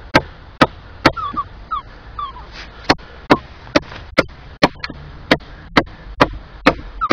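Fixed-blade knife chopping into a thin branch: a run of sharp blade strikes into the wood at about two a second, with a pause of about two seconds after the first three.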